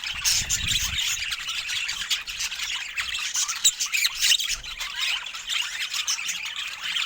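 Budgerigars chattering and squawking, a continuous stream of quick, short chirps and squawks, with a low rumble in the first second.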